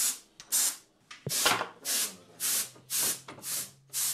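Compressed-air paint spray gun fired in short hissing bursts, about two a second. A low steady hum comes in about halfway through.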